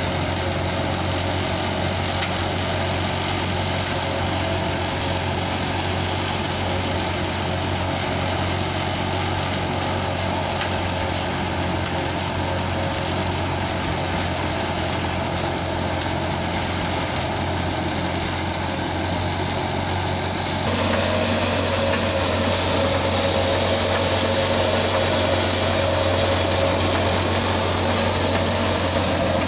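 Tractor-driven gram (chickpea) thresher running steadily under load, its threshing drum and fans mixed with the tractor's diesel engine at steady revs. About two-thirds of the way through the sound steps up a little louder.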